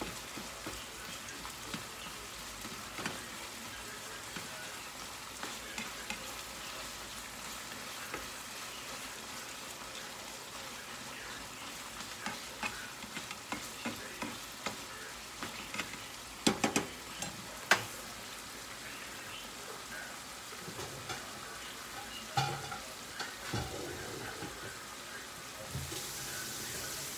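Ground meat sizzling in an uncovered frying pan while a utensil stirs and breaks it up, scraping and tapping against the pan, with a few sharper taps about two-thirds of the way through. The pan is left uncovered so the water cooks off.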